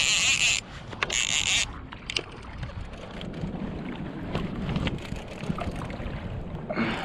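Fishing reel's drag buzzing in two short bursts as a hooked fish runs and pulls line off the spool. After that only a quieter steady wind-and-water noise with a few faint clicks.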